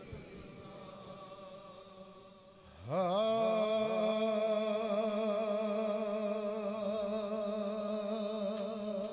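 A male naat reciter's voice sings softly, then slides up about three seconds in and holds one long note with vibrato.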